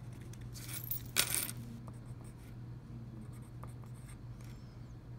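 Pen writing on paper: scattered scratching strokes, the loudest about a second in, over a low steady hum.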